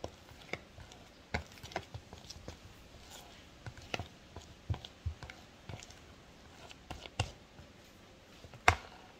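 A utensil clicking and knocking against a plastic mixing basin as a thick banana batter is stirred, in irregular strokes with one louder knock near the end.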